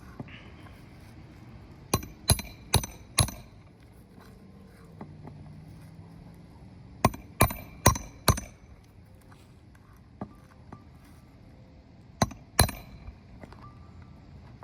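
Hammer blows during shingle roof repair: a quick run of four sharp strikes, another run of four a few seconds later, a lone strike, then two more near the end.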